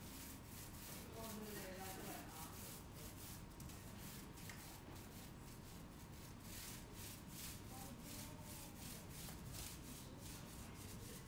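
Paint roller worked up and down a wall, a soft repeated rasping rub with each stroke, a few strokes a second.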